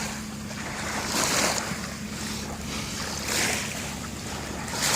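Small waves washing in at the shore, the surf noise swelling about every two seconds, over a faint steady low hum.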